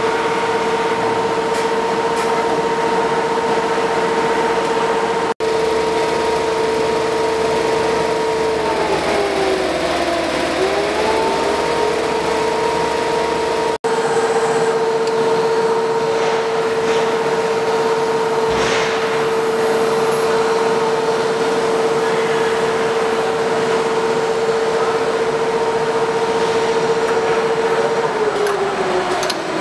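Automatic quilt seaming and turning machine running, its drive motors giving a steady whine over mechanical noise. The whine dips in pitch and comes back up about ten seconds in, and drops lower again near the end as the drive slows.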